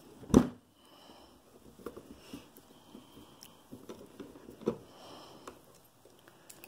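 Quiet handling of a metal knitting-machine carriage as a cross-point screwdriver works a small screw loose: a short sharp sound about half a second in, then a few faint clicks and scrapes.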